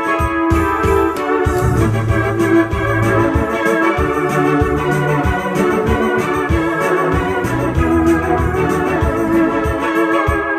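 Roland electronic keyboard played two-handed with an organ sound: held chords over a moving bass line.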